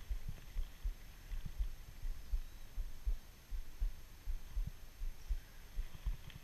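Low, irregular thumping rumble on the camera's microphone, about one or two soft thumps a second over a faint hiss.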